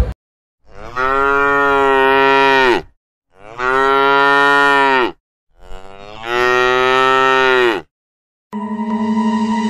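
A cow mooing three times, each long, steady call lasting about two seconds with short silent gaps between. Music starts near the end.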